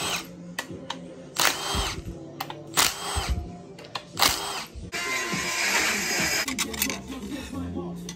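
Cordless power driver running down bolts on the front pump of a Toyota A340 automatic transmission: several short bursts, then a longer run about five seconds in. Background music plays underneath.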